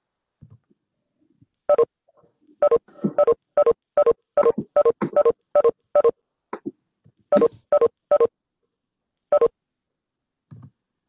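Video-conference app notification chime sounding over and over, about fifteen short identical beeps in quick, uneven succession: the signal of participants leaving the meeting one after another.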